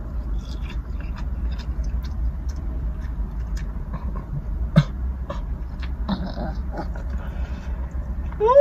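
Small clicks and rustles of food being eaten and handled over a steady low hum, with one sharper click about five seconds in. Right at the end a loud, short pitched sound rises and falls.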